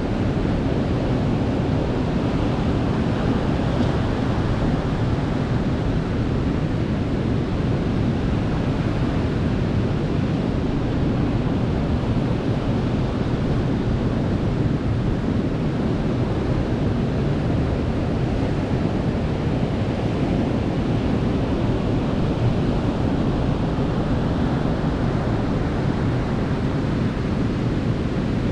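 Ocean surf washing onto a beach: a steady rush of waves, swelling a little brighter a few seconds in and again near the end.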